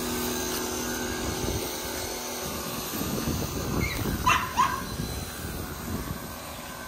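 Small electric pressure washer running, its spray wand hissing steadily against a pickup truck's body and wheels. Two short, sharp calls cut in about four seconds in.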